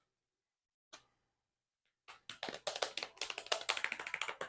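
Plastic sushi packaging being handled and opened: a single click about a second in, then a rapid run of crinkles and crackles from about two seconds in, loudest near the end.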